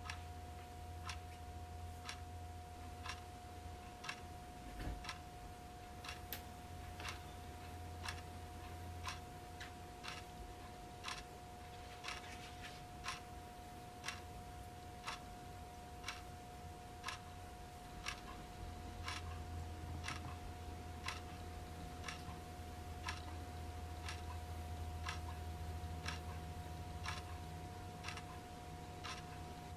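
Wooden wall clock ticking steadily, about one tick a second, over a low steady hum.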